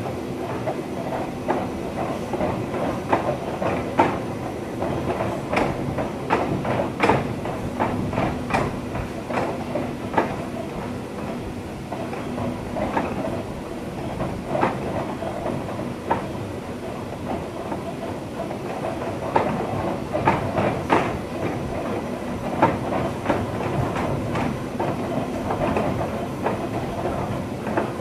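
Electric passenger train running, heard from the driver's cab. The wheels clatter in irregular clicks over the rail joints, over a steady rumble and a low steady hum.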